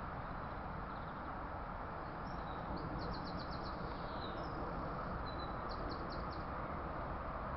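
A small bird chirping over a steady outdoor background noise, with two short quick trills of about six rapid notes, one about three seconds in and another near six seconds.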